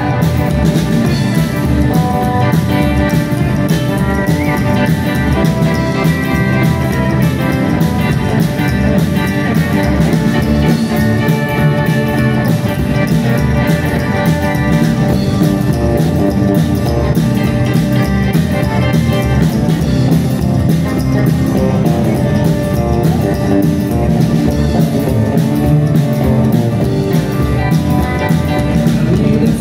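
Live rockabilly band playing: electric guitars, slapped upright double bass and drum kit, with a steady driving beat.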